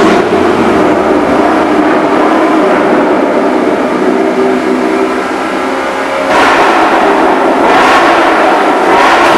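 V8 engine with an aftermarket performance exhaust revving loudly in a parking garage. The revving eases a little in the middle, then comes back in sharp blips about six seconds in and twice more near the end.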